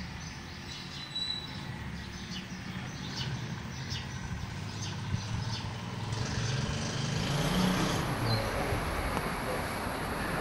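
Scissors snipping through cloth in a series of short, crisp cuts, over a steady low rumble that grows louder and noisier from about seven seconds in.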